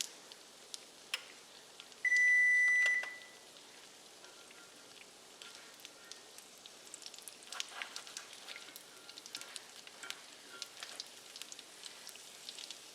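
A kitchen timer gives one steady high beep lasting about a second, about two seconds in. Under it, pizza dough frying in oil and butter sizzles softly with small scattered pops and crackles, busier in the second half.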